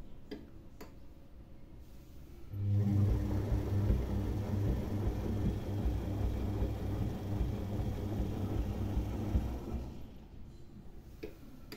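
Front-loading washing machine on an empty hot wash: about two and a half seconds in, the motor starts turning the drum with a steady low hum and churning soapy water, then stops near the end.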